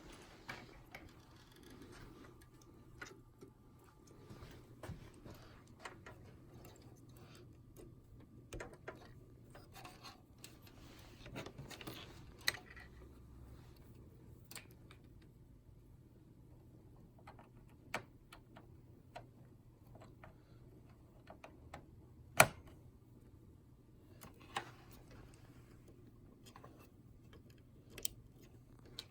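Scattered clicks and light knocks of a hard drive's data and power cables being handled and plugged into their connectors inside a computer case, with one sharper click about three quarters of the way through, over a faint steady low hum.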